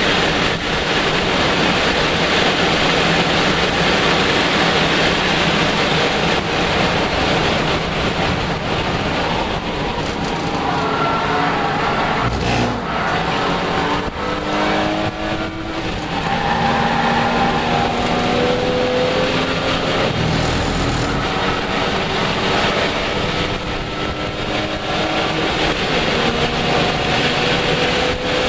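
In-cabin sound of a Lexus IS300 race car's 3.0-litre straight-six at racing speed, with heavy wind and road noise. It holds steady for the first several seconds; from about a third of the way in, the engine note drops and climbs several times through gear changes, then climbs again near the end.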